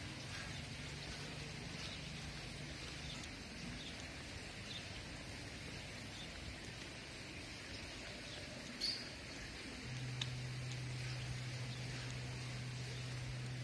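Quiet outdoor ambience: a steady hiss with scattered faint chirps, which sound like birds, and one sharper short sound about nine seconds in. A steady low hum comes in about ten seconds in.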